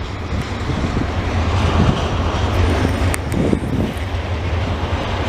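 Double-stack container freight train rolling past: a steady low rumble of wheels on rail, with a sharp click about three seconds in.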